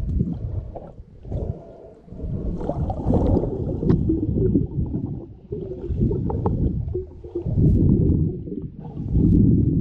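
Muffled underwater sound from a camera held below the surface: a low rumbling of moving water that swells and fades every second or two, with gurgling and a few small clicks.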